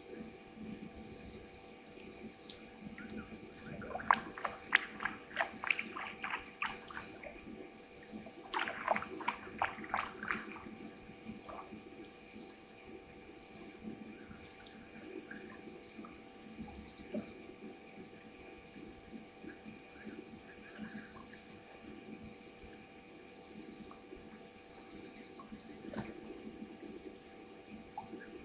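A steady chorus of night insects, crickets among them, trilling and pulsing high. Twice, about four seconds in and again about nine seconds in, an animal gives a run of sharp, clicking notes, about three a second.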